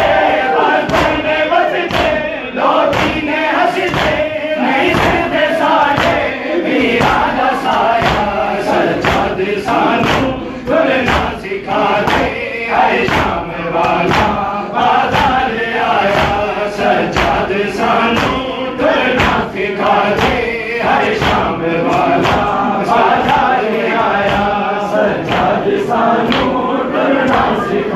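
A crowd of men chanting a Punjabi nauha (Shia lament) together, over a steady rhythm of hands beating on chests (matam) at about two strikes a second.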